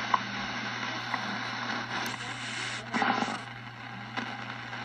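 Shortwave static and hiss from a Yaesu FRG-7 receiver's loudspeaker as the main dial is tuned across the band. There are brief chirps of tone near the start and a short louder burst of noise about three seconds in.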